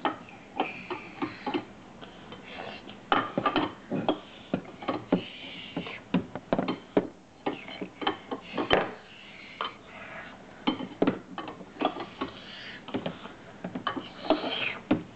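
Plastic toy cups, pots and utensils clicking and knocking against a plastic toy kitchen as they are handled, in irregular light taps.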